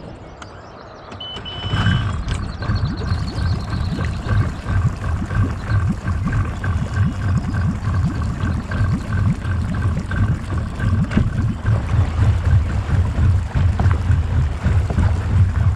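A short electronic beep about a second and a half in, then an electric trolling motor running with a steady whine over a low, uneven rumble.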